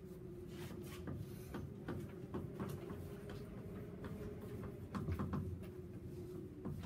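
Chalk writing on a chalkboard: irregular light taps and short scratches as letters are written, over a steady low room hum.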